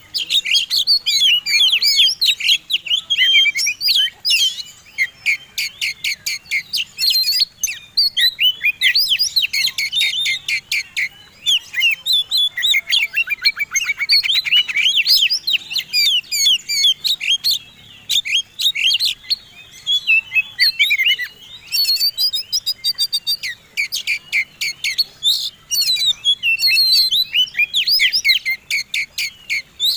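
Oriental magpie-robin in full competition-style song: a fast, unbroken run of varied whistles, chirps and rattling trills, the loud 'gacor' singing used as a lure to set caged magpie-robins singing.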